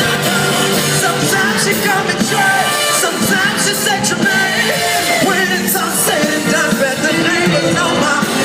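Live R&B concert music played loud, with singing over the band.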